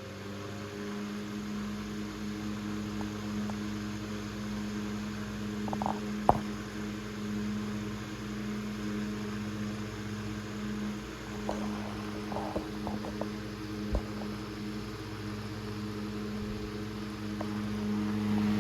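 Antique Robbins & Myers 12-inch table fan running steadily at speed: an even motor hum under the rush of air from the blades, with a few faint clicks.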